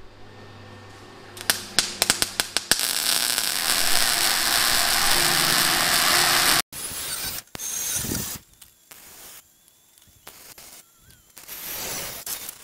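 Wire-feed (MIG) welder arc crackling while welding up an unfinished seam on a steel glasspack muffler. A few short stuttering starts lead into a steady sizzling bead about four seconds long that cuts off abruptly, followed by a shorter burst and a few quieter clicks.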